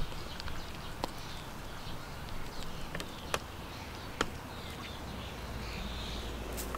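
A few sharp, isolated taps, spaced a second or so apart, over faint background bird chirping.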